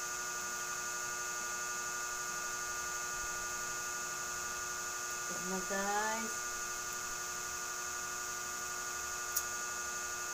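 Steady electrical hum with a high whine and several steady tones. About halfway through, a short rising vocal sound from the eater breaks in briefly.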